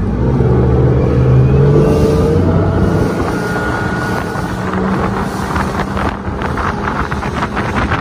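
Outboard engine of a rigid inflatable boat accelerating, its pitch rising over the first two or three seconds, then running steadily at speed. Wind buffets the microphone more and more in the second half.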